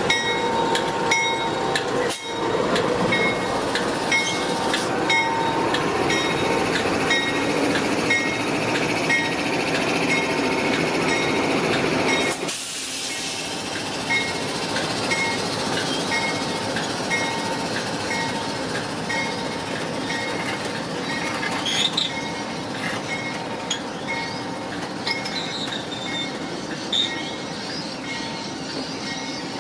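The Overland passenger train pulling out of the station, rolling steadily with recurring short high squeaks from the wheels on the rails. The sound drops suddenly in level about twelve seconds in, then carries on quieter.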